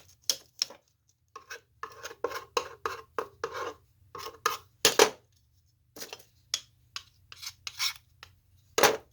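Short, irregular scraping, rubbing and tapping as glue is spread on wood and the wooden pieces are handled. There are two louder knocks, one about five seconds in and one near the end.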